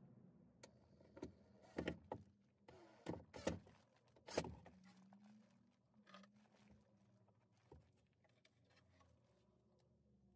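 Plywood storage bins being handled and fitted: a string of sharp wooden knocks and clunks over the first four or five seconds, then only faint handling sounds.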